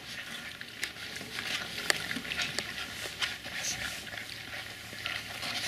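Border collie puppies eating together from a round metal feeding pan: quiet chewing and smacking with scattered small clicks of teeth and food against the pan.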